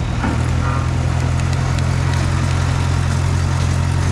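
A quarry derrick crane's engine running steadily with a low, even hum while the crane handles a cut marble block on its wire rope.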